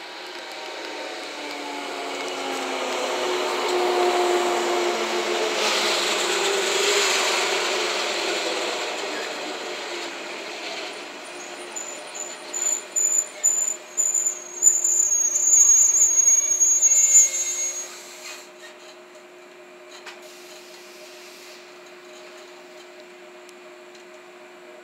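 JNR 115 series electric multiple unit pulling in and braking to a stop: motor and wheel noise falling in pitch as it slows, then pulses of high brake squeal for several seconds past the middle. Once stopped, a steady low hum from the standing train.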